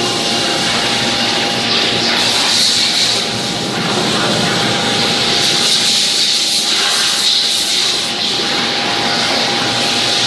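Steady machine noise of CNC machining centres running: a continuous hiss with a steady high whine underneath, holding level throughout.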